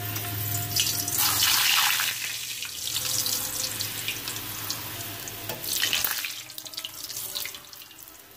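Puri deep-frying in hot oil in a steel karahi, a sizzling hiss that surges about a second in and again around six seconds in. It dies down near the end as the puri is lifted out of the oil.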